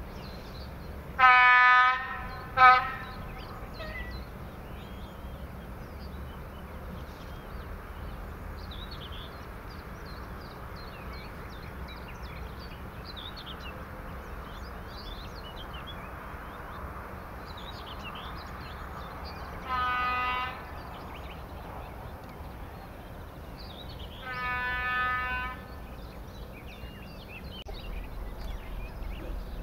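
Train horn of a ČD class 113 electric locomotive sounding in the distance: a blast of about a second and a short one right after it near the start, then two fainter blasts later on. Faint birdsong twitters in the background.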